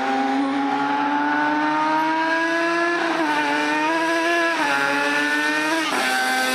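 Two-cylinder two-stroke engine of a riding mower running through a single expansion-chamber pipe and being revved. Its pitch climbs slowly for about three seconds, drops, climbs again, drops, then gives a short blip near the end.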